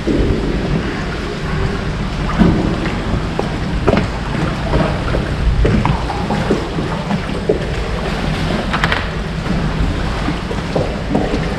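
Wind buffeting the microphone with water slapping against a small boat's hull, and scattered knocks throughout.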